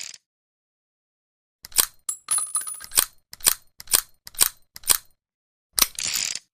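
Saturday night special revolver's action clicking: about a dozen sharp metallic clicks starting about a second and a half in, with two short ringing metallic rattles among them.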